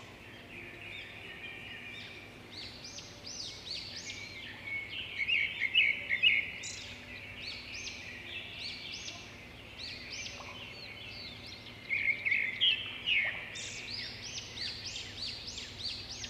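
Several birds chirping and calling in quick, overlapping phrases, louder around six seconds in and again near twelve seconds, over a faint steady low hum.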